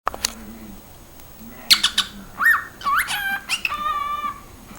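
Cockatiel whistling: a few sharp chirps, then a run of rising-and-falling whistled notes ending in one held whistle.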